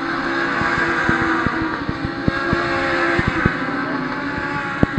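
Race engines running at speed on the circuit, a steady drone that swells a little and then eases as the cars go past. Irregular sharp clicks run through it.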